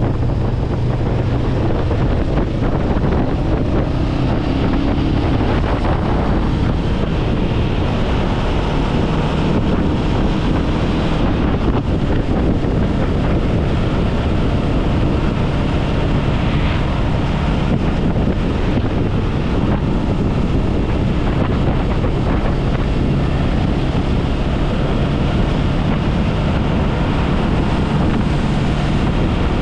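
Wind rushing steadily over the microphone of a Honda Rebel 500 riding at road speed, with the bike's parallel-twin engine running underneath at a steady pitch.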